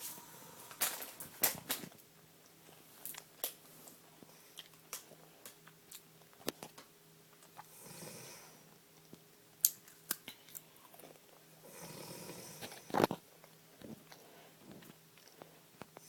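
A woman snoring: two slow, breathy snoring breaths a few seconds apart, past the middle. Sharp clicks and taps are scattered throughout, some louder than the snores, over a faint steady hum.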